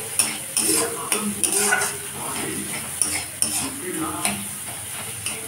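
A metal spatula scrapes and taps against a kadai (wok) as scrambled egg is stirred and fried, with oil sizzling steadily underneath. The strokes come irregularly, a few a second.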